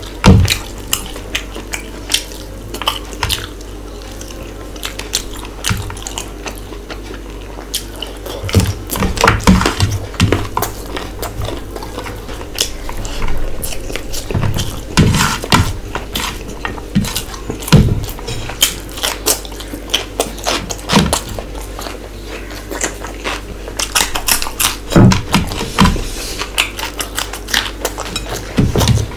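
Close-miked eating sounds: a hand gathering rice on a plate, with fingers tapping and scraping the plate, and chewing and lip smacks. These come as irregular sharp clicks and smacks over a low steady hum.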